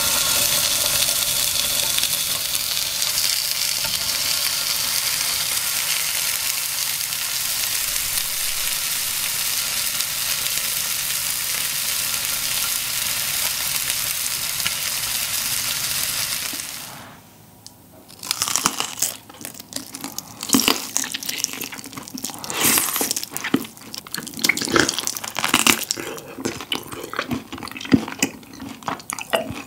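Thick Iberico pork neck steak sizzling steadily in a grill pan, which cuts off after about 17 seconds. Then comes a run of irregular sharp clicks and crackles as the grilled pork is handled at the table.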